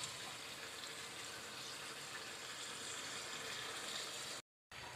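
Beef pasanday rolls bubbling and sizzling in oil and the meat and onion juices they have released in a kadai, a faint steady hiss over high heat as the liquid is cooked off; the sound drops out for a moment near the end.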